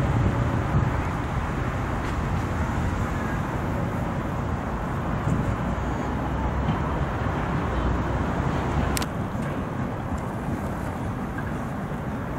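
Steady city street traffic noise, a low rumble of passing cars, with a single sharp click about nine seconds in.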